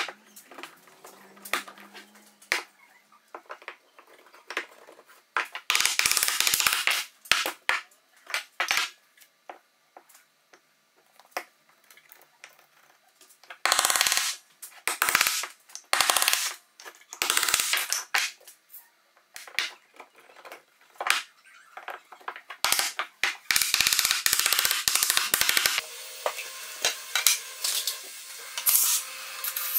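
Sharp knocks and clattering of wooden frame parts being handled and tapped together with a mallet, in loud clusters of blows, with a stretch of steadier noise near the end.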